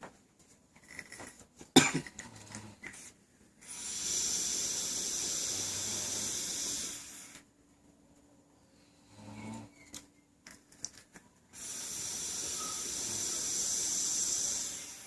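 A person snoring: two long, noisy breaths of about three and a half seconds each, with a shorter, lower sound between them. A sharp click comes about two seconds in.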